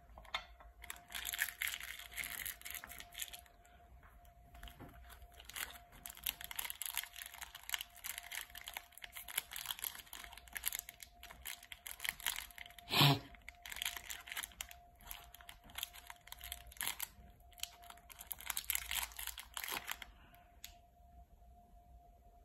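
Plastic chocolate-bar wrapper crinkling and tearing as it is unwrapped by hand, with one sharp, loud rip or snap about 13 seconds in. A faint steady hum runs underneath.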